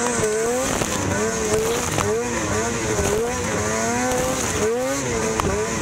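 Lynx RS snowcross sled's two-stroke engine at race pace, revving up and down again and again as the throttle is worked, with a steady high hiss over it.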